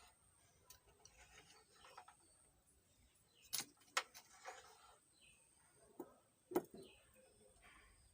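Faint, scattered clicks and taps of small hand tools working on an amplifier circuit board, the sharpest about three and a half and six and a half seconds in, while burnt-out diodes are being desoldered and pulled from the board.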